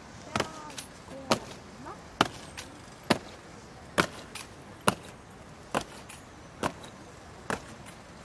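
Ceremonial guards' boots stamping on the paving in a slow, measured march step, one sharp strike a little under a second apart, nine in all, with a few lighter scuffs between.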